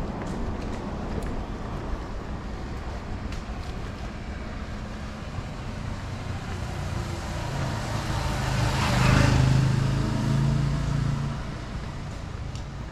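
A car drives past on a wet road: its engine and tyre hiss build to a peak about nine seconds in and fade within a couple of seconds, over a steady background hiss of rain.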